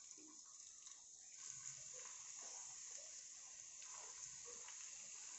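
Faint sizzling of chopped garlic, green chilli and ginger dropped into hot coconut oil, a steady hiss that grows a little louder about a second in.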